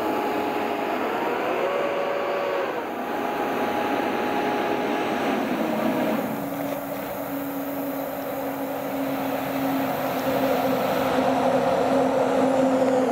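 Fire truck responding with its warning devices sounding over engine and road noise: siren tones glide up and back down, then a long steady low horn tone holds from about halfway through.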